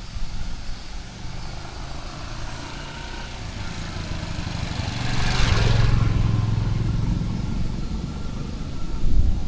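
A motor vehicle approaches and passes by on the wet village road. It grows louder to a peak about five and a half seconds in, where a steady low engine note and tyre hiss are strongest, then slowly fades.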